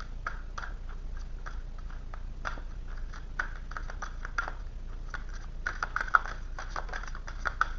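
Tarot cards being handled: a run of faint, irregular soft clicks and flicks, busiest about six seconds in.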